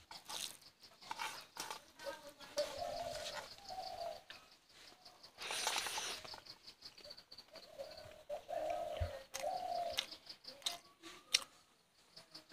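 A dove cooing, in two runs of short low coos: one a few seconds in and another about two-thirds of the way through. Between them come faint clicks and chewing of someone eating rice and curry by hand.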